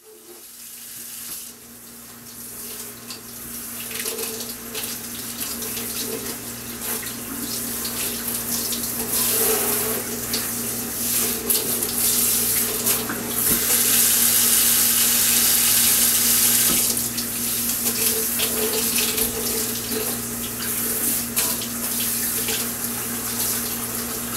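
Water running from a faucet into a sink, swelling over the first several seconds and easing off a little about two-thirds of the way through, with a steady low hum under it.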